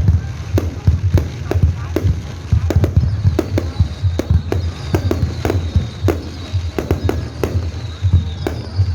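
Fireworks display: a rapid, irregular string of bangs and pops, several a second, over a constant low rumble.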